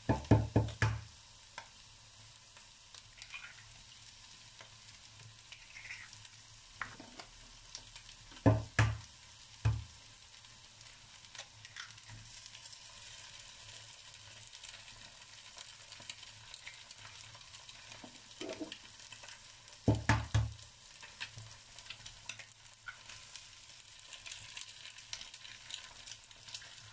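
Onion and leafy greens sizzling softly in a frying pan on a gas burner while eggs are cracked into it. Three dull knocks stand out, near the start, about nine seconds in and about twenty seconds in: the eggshells being knocked open one at a time.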